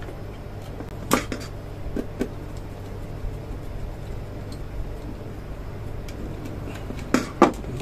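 Light clicks and taps of a wire and small screwdriver handling a plug-in screw terminal block: a few about a second and two seconds in, and a louder pair near the end. Under them runs a steady low hum.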